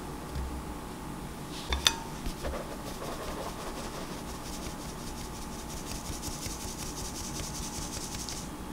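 Rice flour being sifted through a stainless steel mesh sieve tapped by hand: a steady, fine rasping hiss with many tiny ticks. Near two seconds in, a single sharp clink with a short ring.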